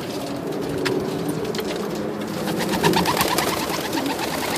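Domestic pigeons cooing in a loft, with a few short wing flaps.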